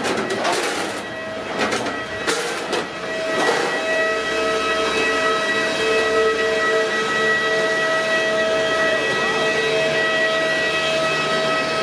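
Steady high jet whine from airliners on the apron: several held tones over a hiss, with a few clicks and knocks in the first three seconds.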